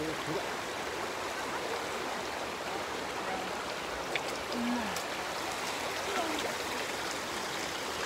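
Shallow mountain stream flowing steadily over a pebble and cobble bed, an even babbling rush of water.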